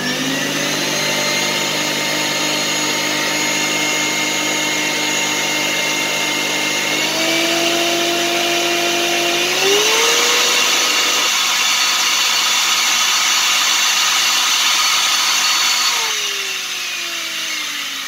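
Zelmer 919.0 washing vacuum cleaner's suction motor running steadily without cutting out, now that its faulty power switch has been replaced. Its pitch steps up about seven seconds in and again around ten seconds, getting louder, then it winds down near the end.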